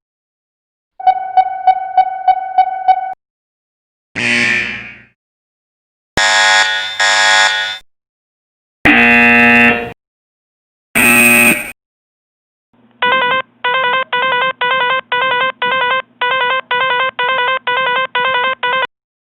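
A series of separate electronic alarm and warning sound effects with short silences between them. First comes a pulsing tone of about seven beats, then a short tone that falls away, then a harsh buzzer sounded twice and two more single buzzer blasts. Near the end a rapid beeping repeats about two to three times a second for several seconds.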